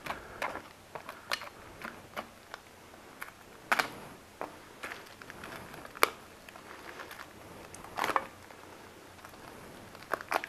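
Plastic and cardboard retail packaging of an aluminium disc guard being opened by hand. It makes irregular crackling and clicking, with a few sharper snaps about four, six and eight seconds in.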